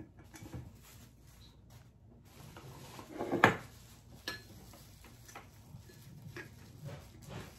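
Handling noises as a light bulb is swapped in a Scentsy warmer: one sharp clatter about three and a half seconds in, then a few faint clicks.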